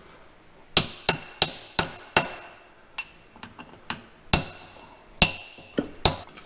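Hammer tapping on a steel part of a Farmall 806's PTO assembly to drive it out of the housing where it sits snug. Sharp ringing metal-on-metal strikes: five quick blows about a second in, then lighter, more spaced taps.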